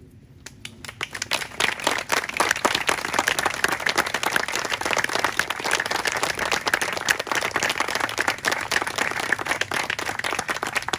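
A small crowd applauding: many hands clapping, swelling over the first couple of seconds and then going on steadily.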